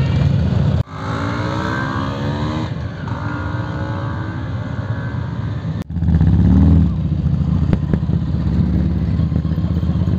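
Motorcycle engines running and revving, heard in short clips that change abruptly, their pitch rising and falling. About six seconds in, a custom motorcycle is revved loudly as it pulls away.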